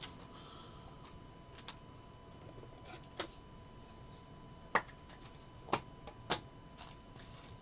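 Trading cards being handled on a table: a handful of sharp, isolated light clicks and taps spaced about a second apart.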